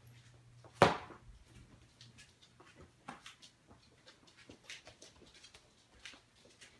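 A single sharp smack about a second in, then scattered faint taps and ticks.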